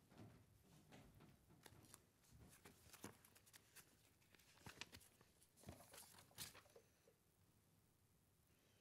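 Faint rustling and light knocks of sheets of paper being handled and set down at a wooden lectern, the clicks and rustles dying away about seven seconds in to near silence.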